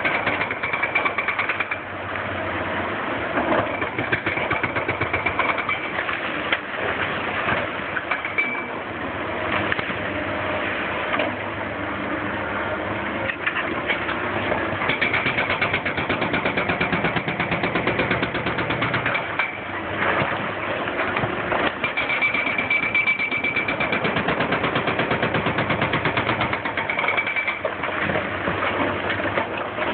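Excavator-mounted hydraulic breaker hammering the bridge deck in rapid, steady blows, with the excavator's diesel engine running beneath.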